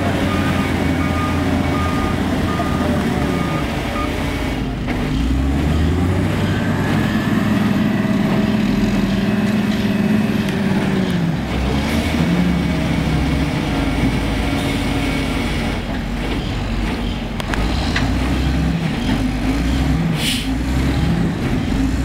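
Heavy diesel engines of oilfield winch trucks running under load, rising and falling in pitch as they work. A backup alarm beeps steadily through the first few seconds.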